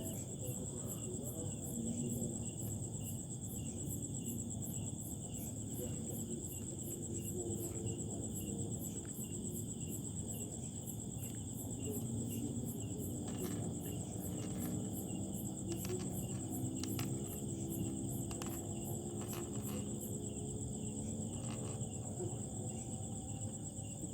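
A chorus of crickets and other insects chirring: a steady high trill with a rapidly pulsing chirp above it, which stops about twenty seconds in.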